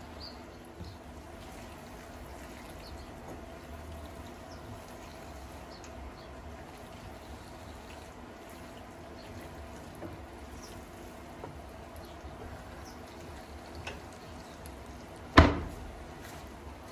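Wet, soft stirring of saucy pasta in a non-stick frying pan with a slotted spatula, with faint ticks over a steady low hum. About fifteen seconds in there is one sharp, loud knock with a short ring.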